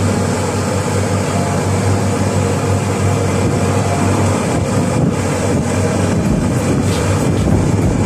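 Open golf cart driving along a road: a steady low hum and road noise, with wind buffeting the microphone, gustier and crackly in the second half.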